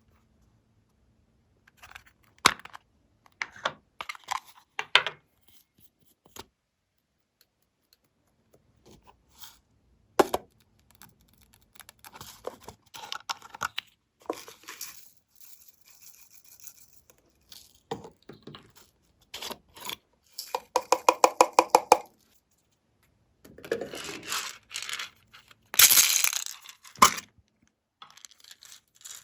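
Glossy slime being handled and mixed by hand: scattered wet clicks, crackles and pops. About two-thirds of the way through comes a fast run of clicks, and near the end a louder crackling burst.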